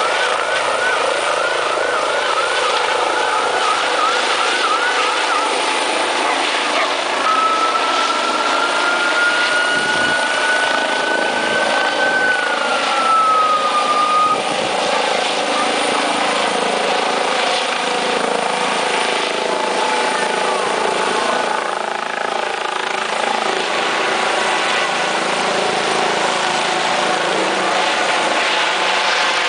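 Eurocopter EC135 police helicopter lifting off and climbing away, its turbine and rotor running steadily loud. Over the rotor noise sits a high whine that wavers for the first few seconds, later rises slightly and then slides down in pitch about halfway through.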